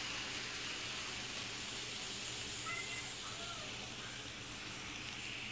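Kato N scale model train running slowly through super-elevated curves: a soft steady hiss with a few faint, brief squeaks.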